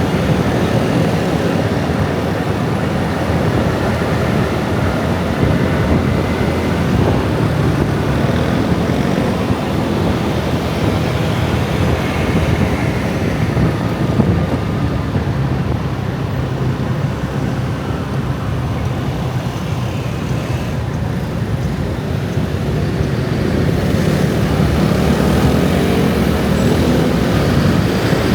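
Dense rush-hour motorbike and scooter traffic streaming past: a steady drone of many small engines and tyres, swelling slightly near the end.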